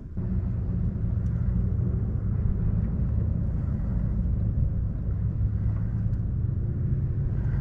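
A boat motor switches on about a quarter second in and runs at a steady low hum.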